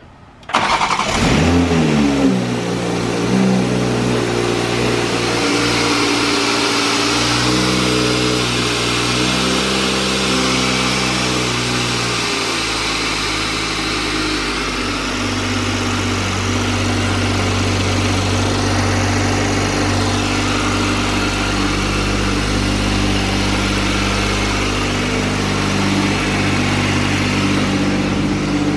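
2020 Toyota Supra engine with a newly installed Precision 6262 top-mount single turbo starting for the first time: it catches about a second in, flares briefly and falls back, then idles steadily, its idle speed shifting in steps a few times as it settles.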